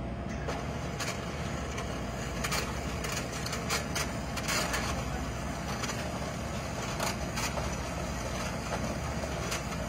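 Handheld electric mixer running steadily at low speed, its whisk beaters whipping a liquid coffee mixture in a glass bowl, with occasional sharp clicks as the beaters touch the glass.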